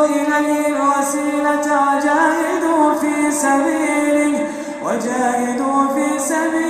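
A man's voice chanting Quran recitation in melodic tajweed style, drawing out long, ornamented held notes. About four and a half seconds in the voice dips briefly, then starts a new phrase on a sharply rising note.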